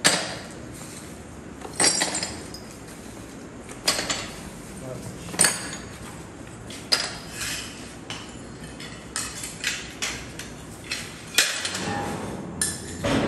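Broken ceramic tile pieces clinking and clattering as they are dropped by hand onto other tile offcuts in a polystyrene box, in irregular bursts every second or two.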